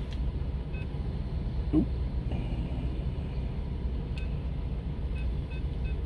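ATM keypad beeping as keys are pressed: one beep, a longer tone, then a quick run of about five beeps near the end, over the steady low hum of an idling car engine. A brief rising squeak about two seconds in.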